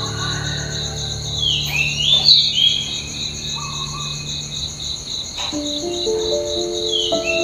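Insects trilling steadily in a high, evenly pulsing chirr, with a few short falling chirps about two seconds in, over background music of slow held notes.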